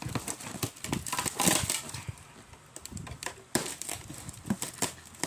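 Cardboard shipping boxes being handled and opened: irregular scraping, rustling and light knocks of the flaps, densest about one and a half seconds in.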